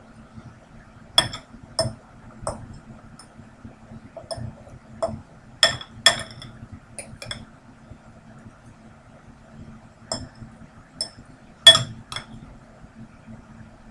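Metal fork clinking against a ceramic bowl while eating, about a dozen short, irregular clinks, the loudest near the end.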